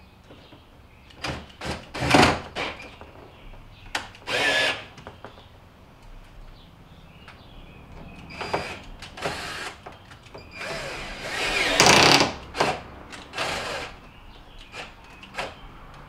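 Cordless drill-driver with a Torx bit running in several short bursts as it drives Torx screws home. The longest and loudest run comes late on.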